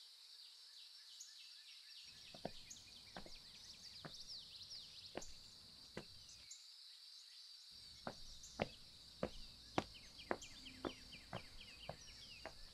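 Faint outdoor ambience: a steady high insect buzz with many quick falling bird chirps, and footsteps on a paved footpath, sparse at first and coming steadily in the second half.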